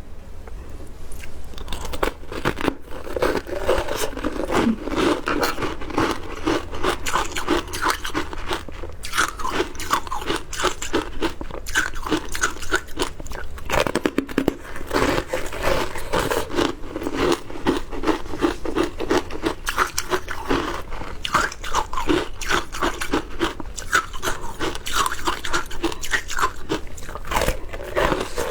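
Frozen passion fruit ice being bitten and chewed, a dense run of rapid crunches with a brief pause about halfway through.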